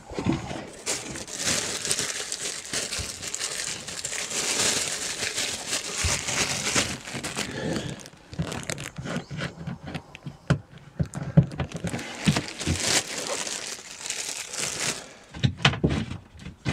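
Thin plastic bag crinkling and rustling as a hand rummages in it, with scattered knocks and taps in the second half.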